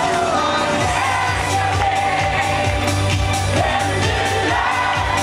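A woman singing live into a microphone over an amplified schlager-pop band with a steady beat, heard from within the crowd.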